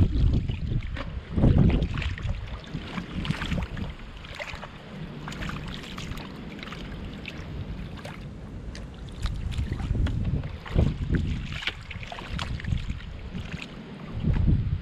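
Hands and bare feet squelching and splashing in shallow water over soft mud, with scattered small clicks and crackles, and wind gusts rumbling on the microphone now and then.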